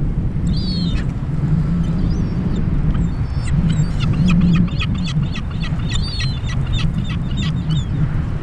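Seagull calling: one short high call, then a quick run of repeated high notes, about four a second, for some four seconds. Under it runs a heavy low rumble of wind on the microphone.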